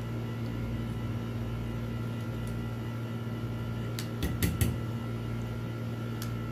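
Steady low electrical hum, with a quick run of three or four sharp metallic clicks about four seconds in as small metal parts are handled on a boiler heater element's terminal studs.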